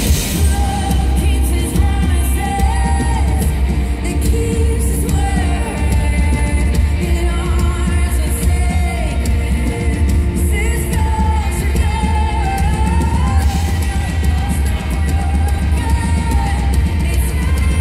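Live pop-worship song through a concert PA: a woman singing the lead melody into a microphone over a full band, with heavy, booming bass.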